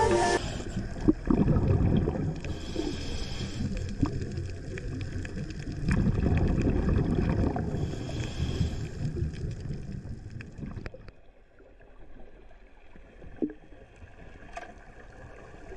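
Underwater gurgle and rumble of scuba divers' exhaled regulator bubbles, swelling in two long surges a few seconds apart, with a sharp knock about a second in. It falls to a quieter underwater hiss after about eleven seconds.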